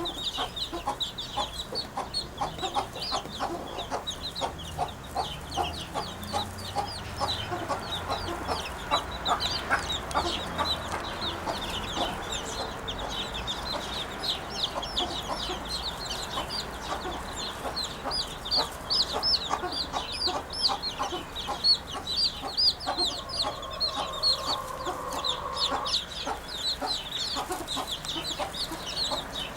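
Birds calling without pause: a dense, quick chirping chatter over lower, chicken-like clucking calls, with a brief held tone about three-quarters of the way through.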